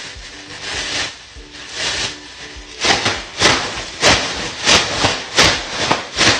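Rhythmic back-and-forth scraping strokes, about one and a half a second, getting louder and closer together about three seconds in.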